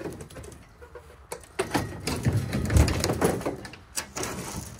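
Old metal road signs being shifted and flipped through by hand, scraping and clattering in a run of knocks that grows loudest in the middle.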